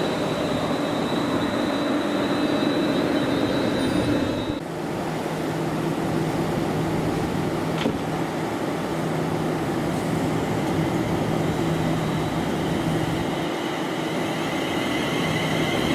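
Electric train running through a station on the main line: a loud, steady rush of wheels and traction noise with a faint high whine. The sound shifts abruptly about four and a half seconds in.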